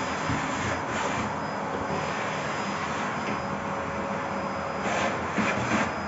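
Bosch BGS21X320 bagless canister vacuum cleaner running steadily while its floor nozzle is pushed over a hard floor, with a few louder scuffs near the end.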